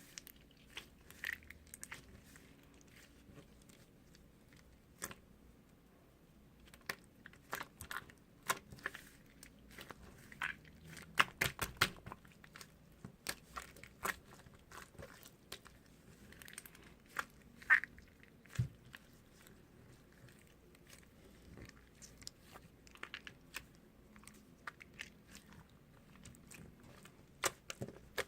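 Slime being squished and poked by hand, giving scattered sticky clicks and small pops, busiest about ten to twelve seconds in.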